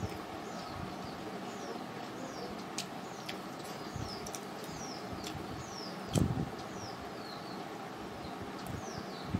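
Close-up eating sounds: fingers working rice on a plate and chewing, with scattered sharp clicks and a dull low thud about six seconds in. Behind them small birds chirp over and over in short falling chirps, over a steady background noise.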